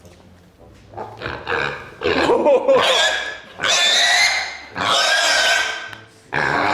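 Pet pig squealing loudly as it is picked up: a series of about four long, high-pitched squeals, each around a second, starting about two seconds in.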